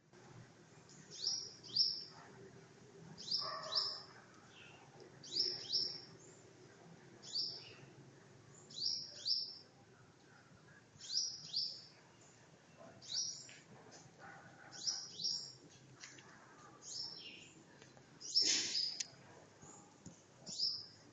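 A bird chirping over and over: a quick pair of high chirps repeated about every two seconds, like 'tweet tweet'.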